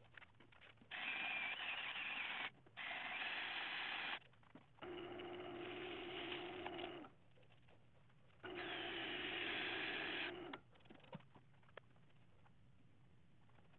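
Sandpaper hissing against a spinning ash bowl on a wood lathe, with the lathe's steady motor hum under some of it. It comes in several short stretches that start and stop abruptly, and after about ten seconds it gives way to a low hum with a few faint clicks.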